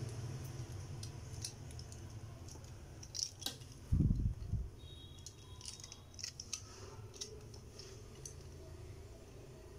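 Handling of small plastic toy parts and a sticker sheet on a wooden table, with two dull thumps about four seconds in and scattered light clicks as a snap-off utility knife's blade is slid out.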